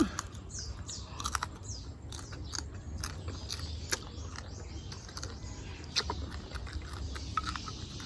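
Small birds chirping in the background, over scattered close clicks and smacks of chewing as food is eaten near the microphone, with a steady low hum underneath.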